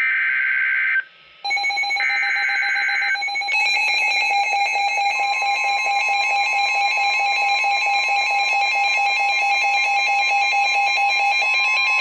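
NOAA Weather Radio Emergency Alert System signal: two one-second bursts of the shrill two-tone SAME digital header open the next alert. An electronic alert alarm then sounds over them, warbling rapidly from about three seconds in. About five seconds in, the steady weather radio warning alarm tone joins it.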